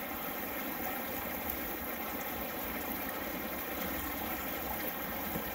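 Steady running water of a shallow creek flowing over rocks.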